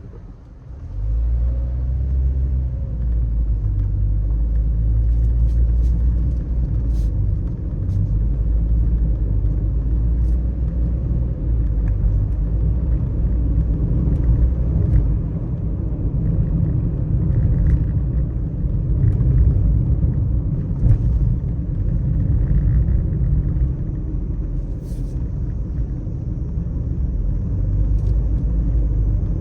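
Car driving on a wet road: a steady low rumble of engine and tyres that swells about a second in and then holds, with a few scattered sharp clicks.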